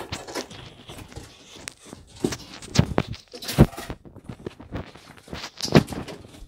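Running footsteps thudding on a floor at an uneven pace, mixed with the knocking and rubbing of a hand-held phone. The loudest thuds come about three and a half and six seconds in.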